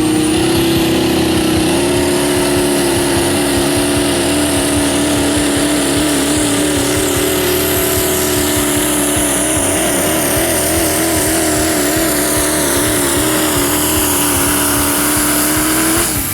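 A pulling truck's engine held at high revs under full throttle through a long steady pull. A high whine climbs in the first second, and the engine note wavers up and down about halfway through.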